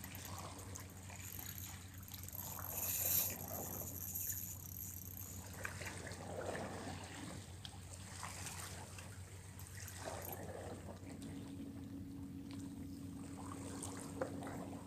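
Water splashing and trickling at the rocky shoreline as a hooked trevally is reeled to the surface and lifted out, with a louder rush of noise about three seconds in.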